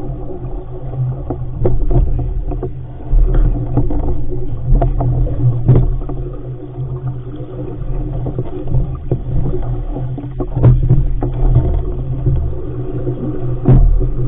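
RS500 sailing dinghy underway in chop: water rushing along the hull and a low wind rumble on the microphone, broken by several irregular thumps as waves strike the hull, the loudest near the end.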